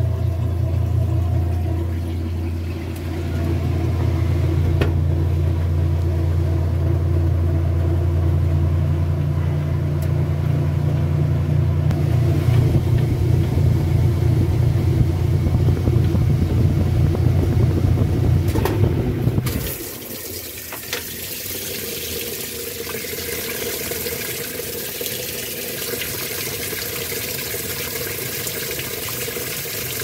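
Top-loading washing machine running empty: a steady low motor hum as the basket spins, which cuts off about twenty seconds in. Water then starts spraying into the tub with a steady hiss as the machine fills.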